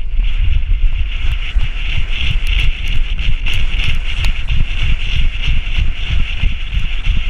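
Heavy wind buffeting on the microphone of a camera strapped to a running whippet's back, with a steady hiss and a rapid, uneven run of low thuds from the dog's strides on sand.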